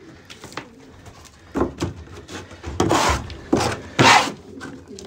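Plastic scraper scraping droppings and grit off the wooden floor of a pigeon loft in several short strokes, with pigeons cooing.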